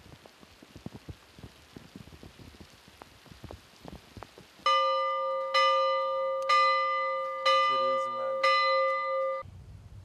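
Rain falling on open water, with scattered drop ticks. About halfway through, a church bell strikes five times, about once a second, each stroke ringing on until the next. The ringing cuts off abruptly near the end.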